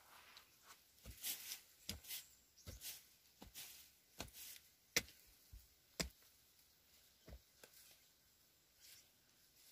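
Faint, irregular soft knocks and rustles, about one a second, thinning out near the end.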